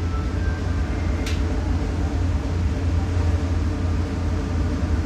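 Steady low drone of a Star Ferry's engine heard on board, with one brief sharp click about a second in.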